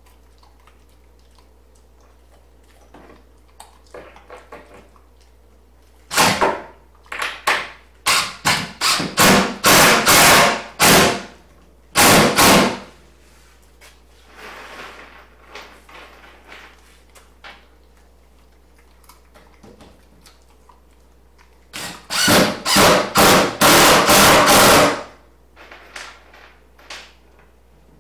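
A power screwdriver driving screws into wood in two runs of short, loud bursts, several in a row, then a pause and another run near the end.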